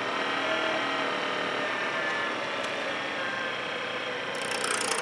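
Woodturning lathe running steadily. Shortly before the end, a loud hissing scrape comes in as a tool is held against the spinning work.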